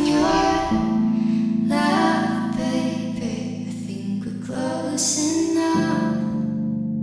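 A slow song: a solo voice sings over sustained accompaniment.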